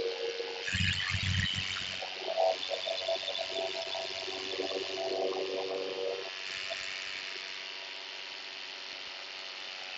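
Small two-stroke paramotor engine buzzing, its pitch wavering for the first few seconds and then steadier and fainter. Wind buffets the microphone with a low rumble about a second in.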